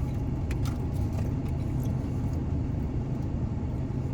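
Steady low rumble of an idling car heard from inside the cabin, with a few faint clicks in the first second or so.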